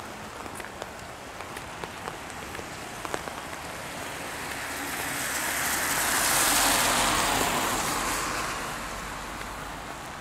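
A car passing on the wet road: its tyre hiss swells to a peak about six seconds in and then fades. Under it runs the steady patter of rain, with scattered drops ticking in the first few seconds.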